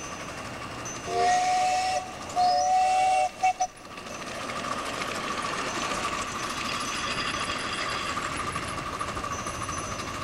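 Whistle of a ride-on live-steam miniature locomotive: a long blast about a second in, a second long blast, then two short toots. After that the locomotive runs on with a steady hissing run.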